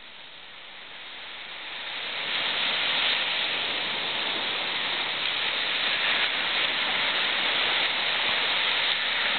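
Surf washing up the beach and swirling around the waders in the shallows: a steady rushing hiss that swells over the first couple of seconds and then holds.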